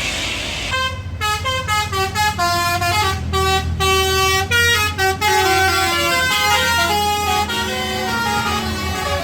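A bus's 'telolet basuri' multi-trumpet musical air horn plays a fast melody of quickly changing notes, starting just under a second in. The bus engine runs steadily underneath.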